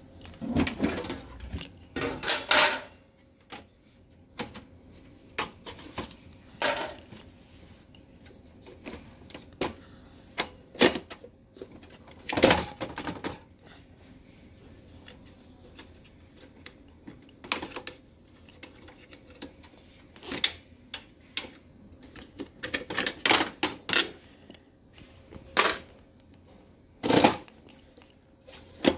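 Plastic latches and sheet-metal parts of an HP desktop computer case clicking and clacking as the case is unlatched and opened and its hinged drive cage is swung up and handled. Scattered sharp clicks and knocks, some in quick clusters, with quiet gaps between.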